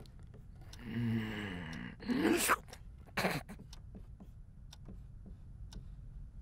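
A low mumbling vocal sound, then a louder rising groan-like vocal sound about two seconds in. After that come a brief scrape and faint irregular ticks of a marker writing on a whiteboard.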